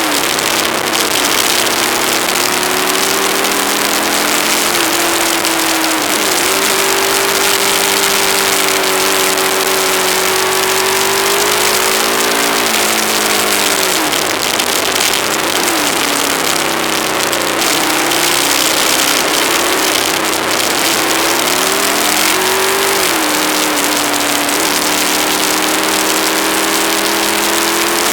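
Aprilia ETV1000 Caponord's V-twin engine running under way, its note dropping and climbing back twice, about halfway through and again about three-quarters through, under heavy wind hiss on the action-camera microphone.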